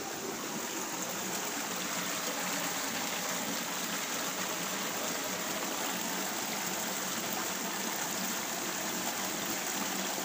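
Water of a small stony stream running steadily, an even rushing hiss with no distinct splashes.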